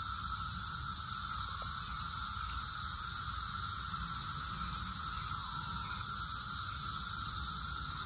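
Massed chorus of Brood X 17-year periodic cicadas: a steady, unbroken drone with one lower-pitched and one higher-pitched band.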